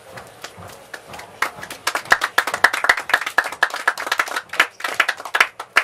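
A small audience clapping, the separate claps plainly distinct. The clapping starts about a second and a half in, swells, and thins out near the end.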